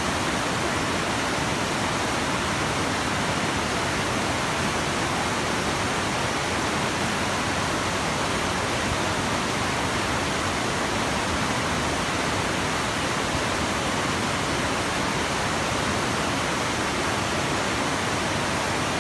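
Whitewater of a river falls rushing over rocks: a steady, unbroken rush of water.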